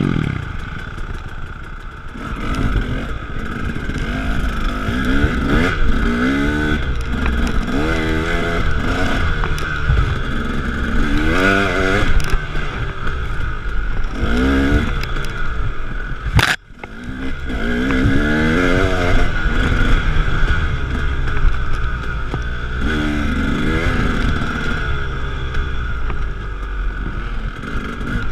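KTM 300 two-stroke dirt bike engine revving up and falling back again and again while riding a rough trail, with rattling and scraping from the bike. A sharp knock about halfway through, with a brief drop in the sound.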